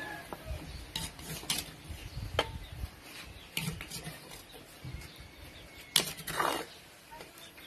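Scattered clicks, knocks and scrapes of a spoon scooping papaya salad out of a clay mortar onto a plate, with a sharper knock and a short scrape about six seconds in.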